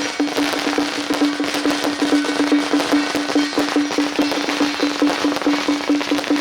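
Strings of firecrackers crackling over a steady, pitched percussion beat of about four to five strokes a second from a Taiwanese temple percussion band.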